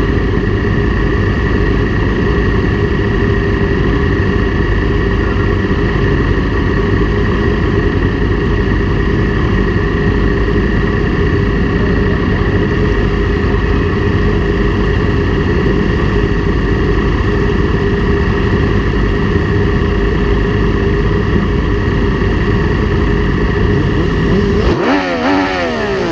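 Motorcycle engines idling steadily close by, a low rumble with a constant pitch. Near the end the rumble drops away.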